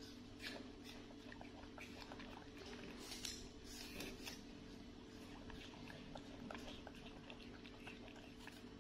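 Two young monkeys chewing apple slices: soft chewing with many small scattered clicks over a steady low hum.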